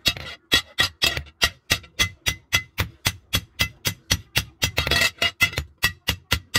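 Hand hammer beating a steel hoe blade on an anvil, quick even blows of about six a second, each with a short metallic ring, as the blade is shaped.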